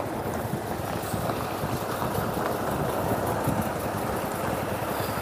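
Vehicle engine running steadily at idle: a low, continuous rumble.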